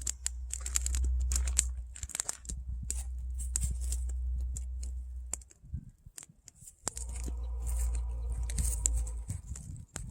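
Wind rumbling on the microphone, with scattered crackling and crunching clicks. The rumble drops out for about a second past the middle, then returns.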